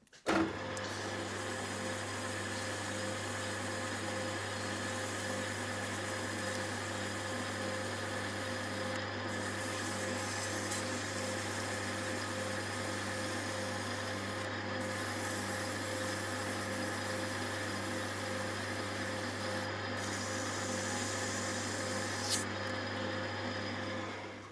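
Metal-turning lathe running steadily, with a constant low hum. It starts abruptly just after the beginning, gives a brief click about two seconds before the end, and fades out at the very end.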